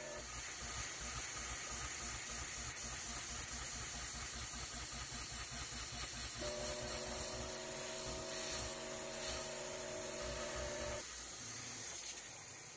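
Coolant nozzle blowing a steady hiss over an end mill cutting steel on a CNC-converted Optimum MH28V milling machine, with a low rapid rumble from the cut underneath. About six seconds in, a steady machine hum joins in, then stops about four and a half seconds later.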